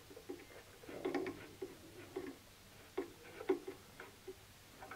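Faint, irregular small clicks and knocks from handling the grinder's tool bar and a depth gauge while nudging the bar down to height.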